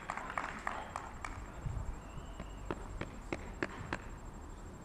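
Running footsteps: a string of sharp taps, a loose cluster in the first second and then about three steps a second near the end.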